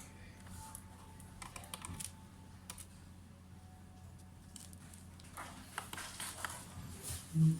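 Irregular key clicks and taps on a laptop keyboard over a steady low hum, with a brief loud low buzz near the end.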